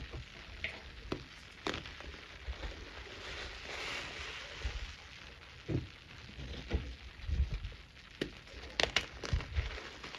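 Wet white powder fizzing and crackling as hands press into it and crumble chalky clumps. Soft crunches and muffled thumps come throughout, loudest in a cluster about nine seconds in.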